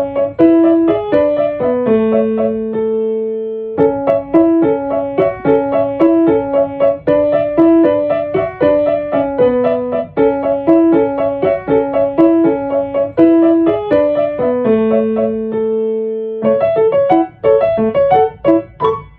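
Solo piano music: a gentle melody of evenly paced repeated notes, twice pausing on a held low chord.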